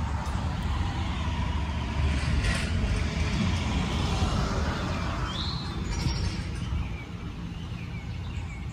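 A car passing on the street, a steady rumble of engine and tyres that eases off about seven seconds in, with a bird chirping once.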